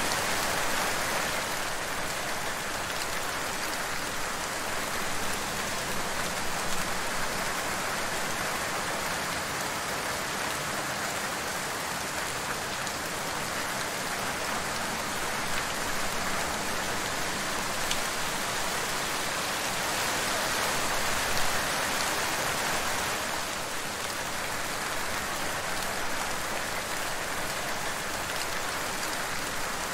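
Steady rain falling: an even, dense hiss with scattered drop ticks.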